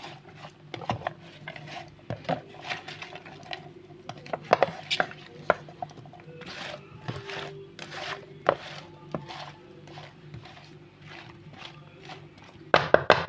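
A utensil clinking and scraping against a baking tray as chopped potatoes, onion, tomato and pepper are stirred together, in irregular knocks and scrapes. A steady low hum runs underneath.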